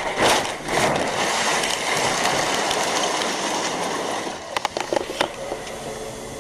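Car crash heard from inside the car as it rolls over: a loud impact just at the start, then a long, steady rushing and scraping noise as it tumbles and slides, with several sharp knocks in the last third as debris strikes the car, before it quietens.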